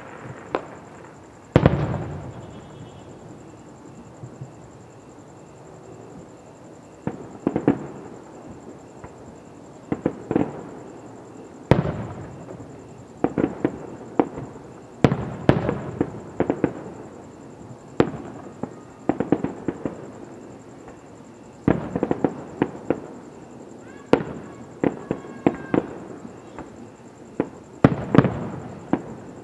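Aerial fireworks shells bursting in sharp booms at irregular intervals, each trailing off in an echo. The loudest comes about two seconds in, and later ones arrive in quick clusters of several bangs.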